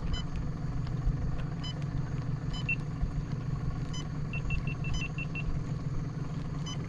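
Boat's outboard motor idling steadily, with a quick run of short high-pitched beeps about four and a half seconds in.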